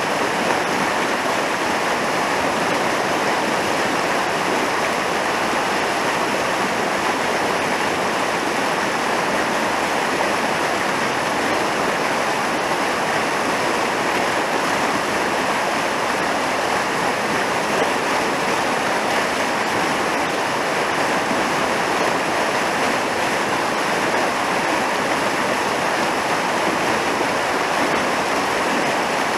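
Fast mountain river rushing over white-water rapids, an even, unbroken noise of water.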